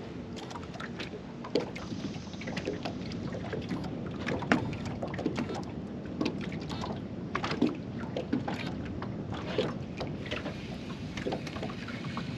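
Small fishing boat sitting on the water, with water lapping at the hull and many light knocks and clicks against it.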